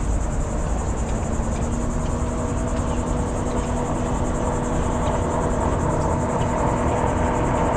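Distant watercraft engine droning: a steady hum of a few held tones that grows slightly stronger near the end, over a low steady rumble.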